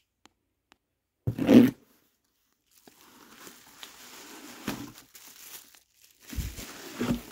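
A cardboard box being torn open, with one short loud rip about a second and a half in. Then cardboard scrapes and bubble wrap crinkles as the bubble-wrapped contents slide out, with a few dull thumps near the end.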